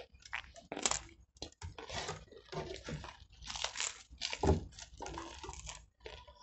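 People eating Danish pastries fast: irregular chewing and crunching, with small bites of flaky pastry breaking up between the teeth.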